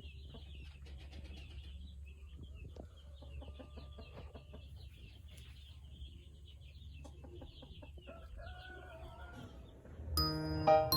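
Poultry calling softly: a steady high chattering with scattered clucks over a low rumble, and a couple of rising calls near the end. A chiming, piano-like jingle starts just before the end.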